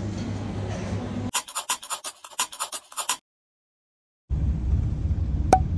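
Low room hum, broken about a second in by a quick run of about ten sharp clicks and scratches, a scribbling sound effect for a handwritten logo being drawn. A second of dead silence follows, then a low steady rumble with a single click near the end.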